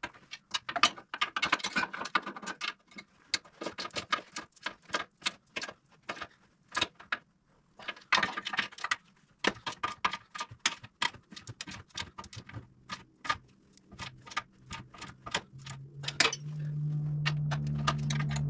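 Hand ratchet clicking in quick runs as bolts are turned, mixed with light metal clinks of tools and hardware. Music comes in near the end.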